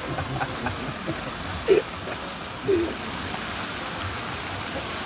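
Chicken pieces deep-frying in a large fryer, the hot oil sizzling and bubbling steadily.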